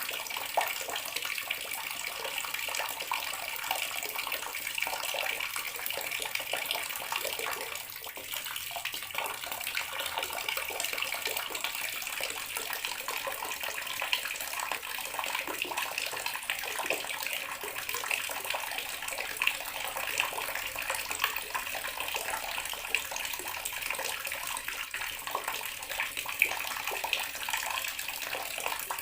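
Bathroom water tap running steadily, water splashing and pattering into the basin or tub below.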